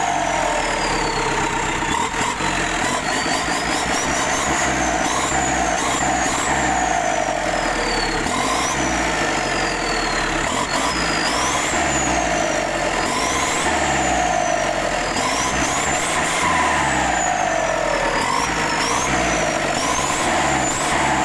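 Isuzu 4HF1 four-cylinder diesel engine with an aftermarket turbo kit, revved up and down repeatedly. The turbo whistles, a high tone that climbs with each rev and slides back down as it spools down, about every two to three seconds.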